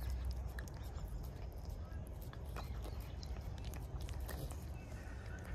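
Calico cat licking a wet paste treat from a squeeze tube, making quick irregular licking and smacking clicks. A low rumble runs underneath.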